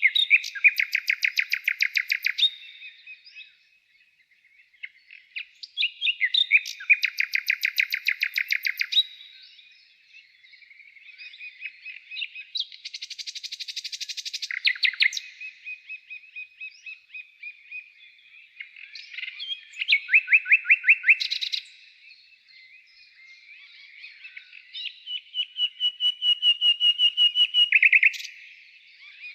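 A songbird singing: five phrases of rapid repeated notes, each two to three seconds long and spaced several seconds apart, with fainter chirps between them.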